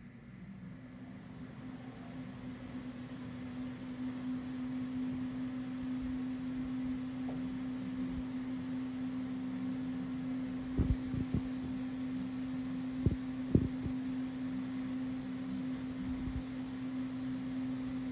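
A steady low mechanical hum, growing louder over the first few seconds. A few sharp knocks a little past halfway come from the tumbler and roll of painter's tape being handled on the wooden table.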